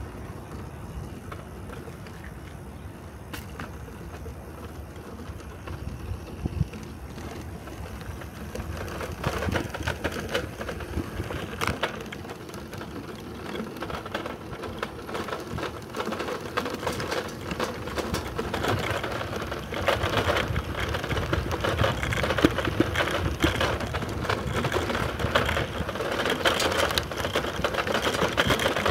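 Bicycle rolling over brick paving, its frame and front wire basket rattling quickly over the paver joints along with tyre noise; the rattle grows louder through the second half.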